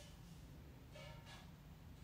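Near silence: room tone, with one faint, brief pitched tone about a second in.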